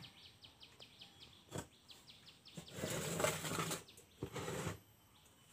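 Two bursts of rustling, handling noise, the louder about three seconds in and a shorter one just after four seconds. Behind them, a quick series of high, falling bird chirps runs through the first half.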